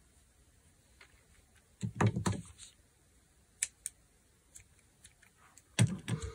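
Small objects being handled on a tabletop: a few short clicks and knocks in two clusters, about two seconds in and again near the end, with a single click between.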